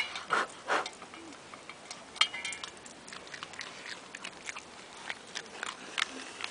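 Dog eating dry kibble out of a metal bowl: irregular crunching and clicking as it chews. A brief high-pitched sound about two seconds in.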